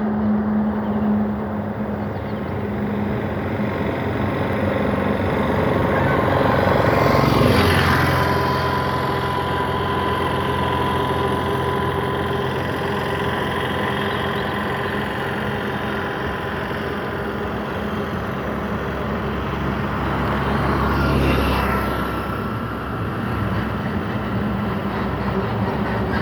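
Motor vehicle engine running steadily with a droning hum. The engine note shifts to a new pitch about seven seconds in, with a brief swell, and shifts again near the end.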